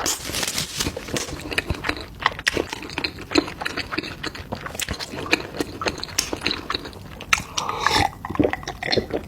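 Close-miked eating sounds: a person chewing and biting food, with many small wet clicks, smacks and crunches in an irregular stream.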